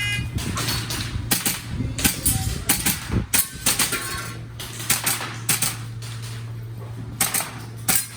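Airsoft gun firing a string of sharp shots, many in quick pairs, with a pause of about a second and a half before a last few shots near the end: a shooter working through an IPSC course of fire.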